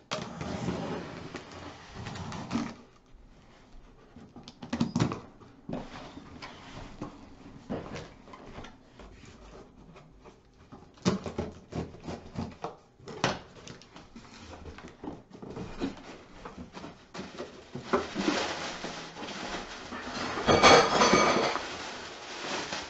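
Packaging being handled during an unboxing, with scattered knocks, clicks and rustling. A louder clatter of things being dropped in a kitchen comes near the end.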